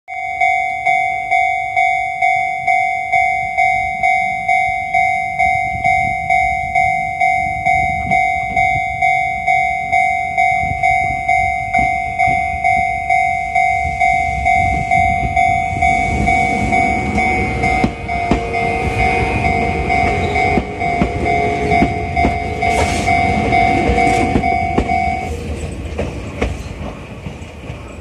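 Railway level-crossing warning bell ringing in a steady electronic ding about twice a second. A Jomo Electric Railway 700 series electric train comes up and rolls past with a low rumble and clatter of wheels over the rails. The bell stops a few seconds before the end while the train noise carries on.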